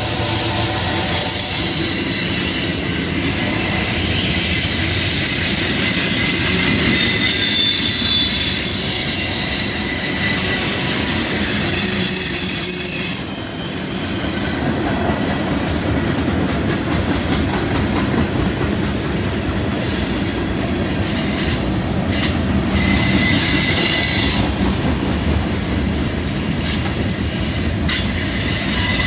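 Freight train cars rolling through a curve with a steady low rumble, their wheel flanges squealing against the rail in several high tones. The squeal fades about halfway through, giving way to a rapid clicking of wheels, then returns briefly near the end.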